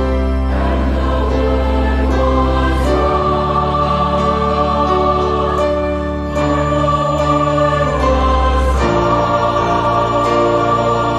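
Large mixed choir singing a sacred choral piece in full, sustained chords over deep held bass notes, the harmony shifting to a new chord about every three seconds, with a brief dip in loudness just after the middle.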